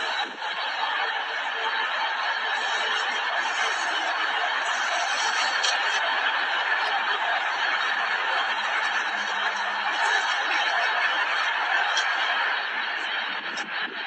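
People laughing: a steady stream of snickering and chuckling.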